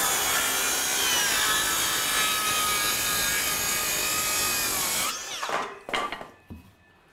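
Handheld circular saw ripping a 2x8 board lengthwise: a steady motor whine with the blade cutting through the wood. About five seconds in the cut ends and the saw is let off, its motor winding down.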